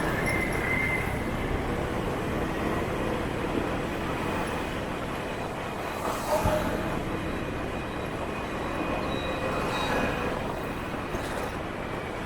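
Motorbike traffic heard from a moving scooter: a steady rush of engines and road noise, with a brief louder sound about six seconds in.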